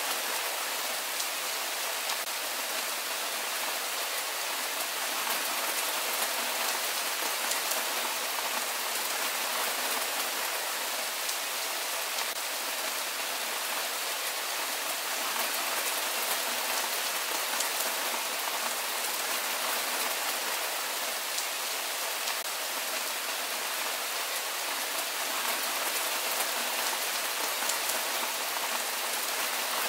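Steady rain falling: an even, dense hiss with fine ticks of individual drops, holding level without change.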